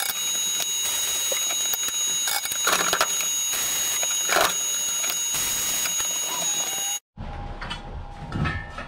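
A steady machine whine with hiss, broken twice by short metallic scraping noises as a stainless steel box is handled. After a sudden break, a hammer knocks once on a transfer punch set on the stainless plate near the end, marking a hole position.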